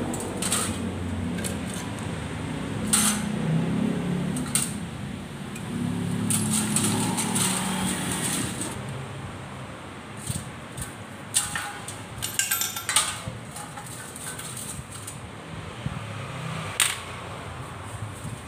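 Metal motorcycle engine parts clinking and knocking against a basin as they are washed by hand with a brush in cleaning liquid: scattered sharp clinks, with a quick cluster of them past the middle.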